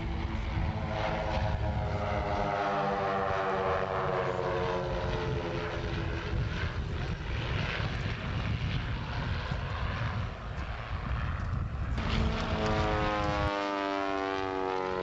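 Propeller engines of a formation of Pitts Special aerobatic biplanes droning as they fly past, the pitch sliding down as they go by. About twelve seconds in, a closer single biplane's engine comes in and also drops in pitch as it passes.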